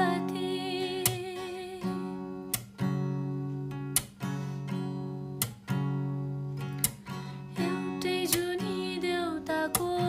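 Background music: strummed guitar-like chords, renewed about every second and a half, with a wavering melody line near the start and again near the end.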